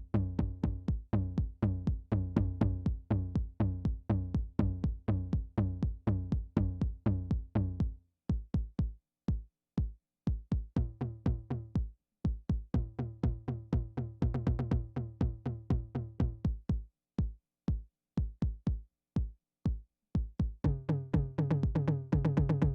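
Roland analog drum machine playing a programmed beat at a steady tempo, about four hits a second, with deep pitched kick drum hits. The pattern thins out about eight seconds in, builds back up a few seconds later, and a deeper pitched part joins near the end.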